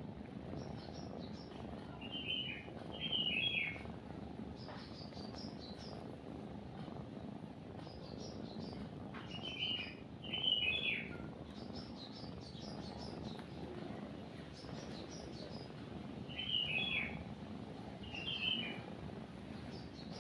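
A cat purring steadily under birdsong. Three times, a bird gives a pair of short falling calls about a second apart, with fainter high chirps in between.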